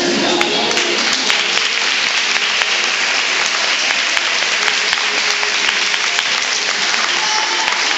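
Audience applauding, with the music fading out underneath about a second in.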